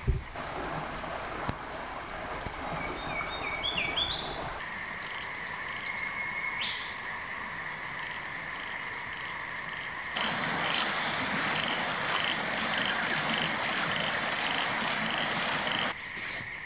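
Australian bush ambience: a steady chorus of calling frogs and insects, with a bird's short notes stepping up in pitch a few seconds in. In the second half a pulsing call repeats about twice a second. The background changes abruptly several times.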